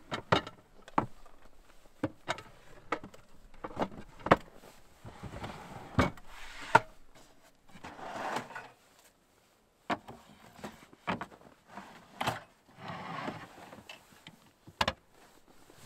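Scattered knocks, clicks and clunks of camp kitchen gear and storage drawers being handled and packed away at the back of a Jeep, with short spells of rustling between them.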